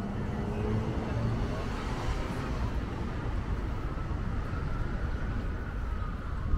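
Road traffic rumbling steadily on a city street, with a faint whine that rises and falls gently in the middle as a vehicle goes by.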